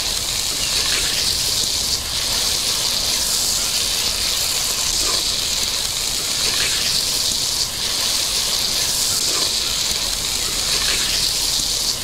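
Sliced onions frying in hot oil in a clay pot: a steady sizzle, with the onions stirred through a few times.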